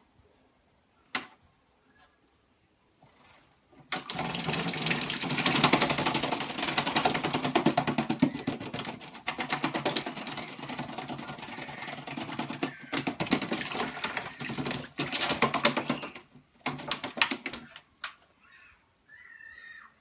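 Black-capped lory bathing in a water bowl, fluttering its wings and splashing in a fast patter. The splashing starts about four seconds in, breaks off briefly a few times, and stops near the end.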